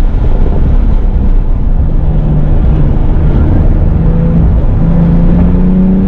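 A 2017 Porsche 911 GTS's twin-turbo flat-six running at track speed, with road and wind noise. The engine note eases in the middle and climbs again over the last couple of seconds.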